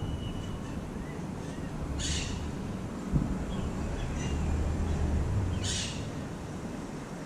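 Two short, harsh bird calls, one about two seconds in and another about four seconds later, with a few faint chirps between them, over a steady low rumble.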